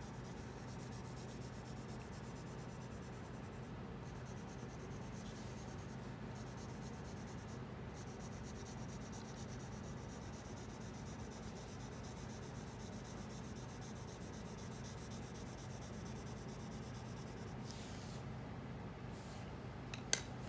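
A light brown coloured pencil scratching steadily on paper as it shades in a large area, over a low steady hum. Near the end there is one sharp click as the pencil is set down on the table.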